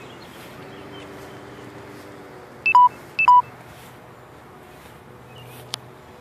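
Two short electronic beeps about half a second apart, each a quick high blip stepping down to a lower steady tone, over a low outdoor background; a single sharp click near the end.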